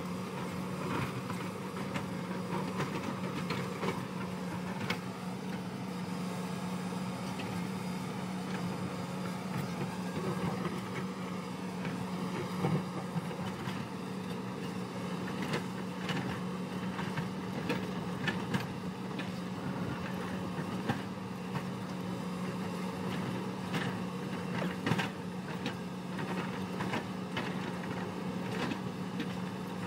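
Hyundai 220 crawler excavator's diesel engine running at a steady low hum while its bucket digs into a rocky earth bank, with scattered knocks and clatter of rock and soil.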